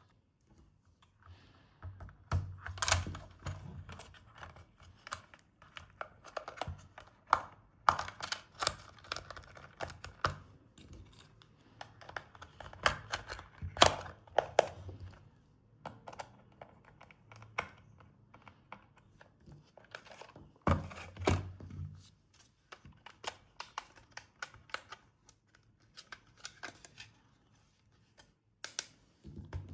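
Toy packaging and plastic parts being handled by hand: irregular clicks, taps and rustling, with some tearing, and a few quiet pauses.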